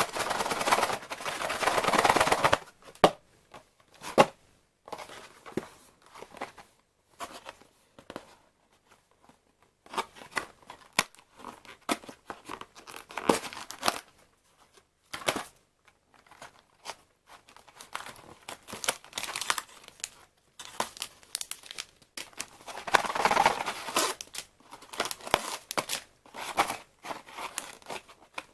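A box of Milford fruit tea being opened: paper and cardboard packaging torn and crinkled. There is a long tearing rustle at the start and another about 23 seconds in, with short rustles and clicks of handling in between.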